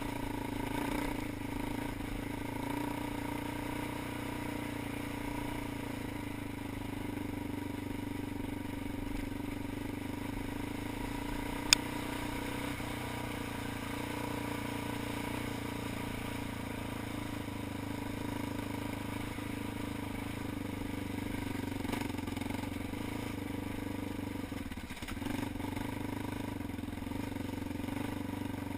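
ATV engine running at a steady pace with a constant drone, one sharp tick about halfway through, and a brief dip in the engine note near the end.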